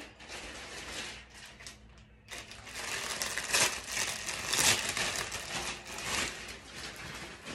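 Plastic packaging crinkling and rustling as it is handled, light at first and then louder and busier from a couple of seconds in.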